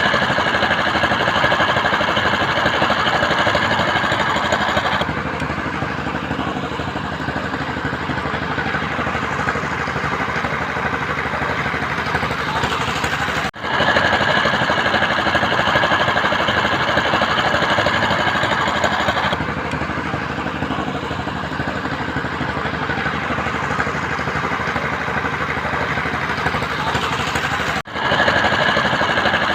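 Construction machinery engine running steadily with a rapid rattling pulse and a high whine, easing down in level for stretches; the sound breaks off briefly twice, about 13 and 28 seconds in, where the recording cuts.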